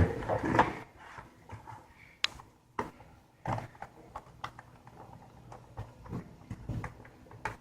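Scattered light clicks and taps, one or two a second, from a screwdriver and the plastic bottom cover of a Lenovo ThinkPad E560 laptop as the cover screws are tightened.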